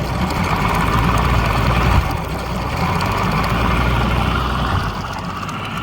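Mariner 60 hp outboard motor running, with a sharp jump in level about two seconds in. The owner's clip was sent to show what the mechanic takes for a lean sneeze: the carburettor spitting back because the fuel mixture is too lean.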